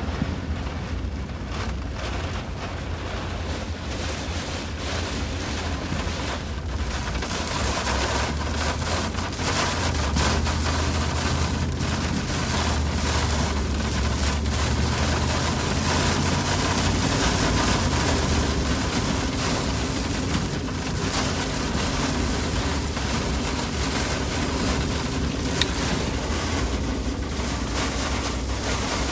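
A car driving through a storm, heard from inside the cabin: the steady low rumble of engine and tyres on a wet road, with wind gusts and rain buffeting the car. The rush of wind and rain grows louder about eight seconds in.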